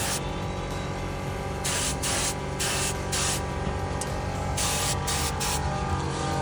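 Several short bursts of hiss from a compressed-air spray gun, with steady background music underneath.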